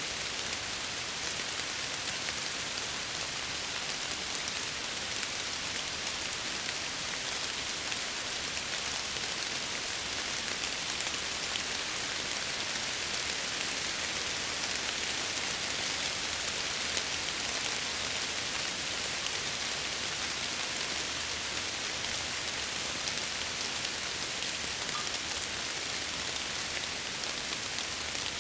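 Steady rain with fine individual drops ticking against window glass, an even hiss with no pauses.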